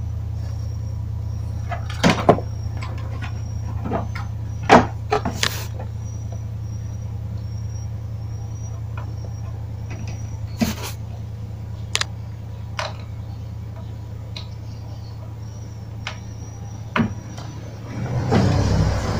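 Scattered clicks and knocks from a CRT television's circuit boards and connectors being handled and fitted back together on a wooden bench, over a steady low hum, with a louder rustle near the end.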